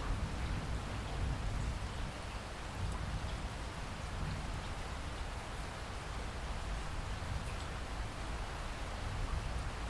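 Steady rain falling, an even hiss with a low rumble and scattered drop ticks.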